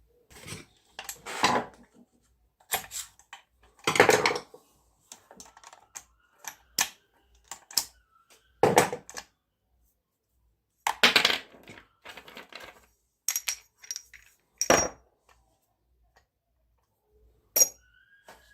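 Metal tools and parts clinking and knocking against each other and a hard surface in irregular separate strikes. A few of them, about two thirds of the way in, ring briefly.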